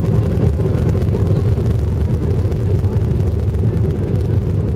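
Airliner cabin noise: a steady low rumble of the engines and rushing air, heard from inside the passenger cabin.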